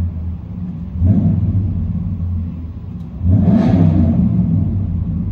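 RAM 2500 Power Wagon's 5.7-litre HEMI V8 through a Black Widow Venom 250 muffler and dual tailpipes, heard from inside the cab: a deep rumble, revved about a second in and settling back, then revved harder a little past three seconds in.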